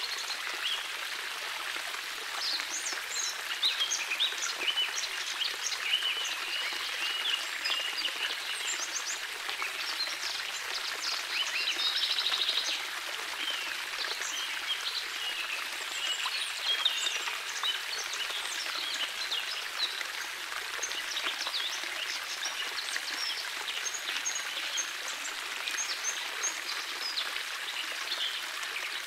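Shallow water trickling and babbling over pebbles and spilling over the edges of flat stepping stones in a landscaped stream, with many short bird chirps throughout.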